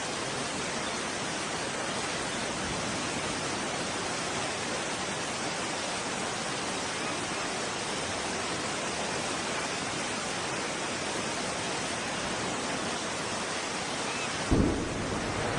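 Underwater nuclear test explosion: a steady rushing noise like falling spray, broken near the end by a sudden deep thump.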